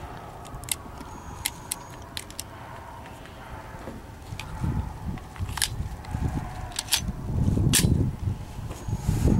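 Irregular small metallic clicks and clacks of .357 SIG cartridges and a pistol magazine being loaded and handled, with a few dull knocks in between.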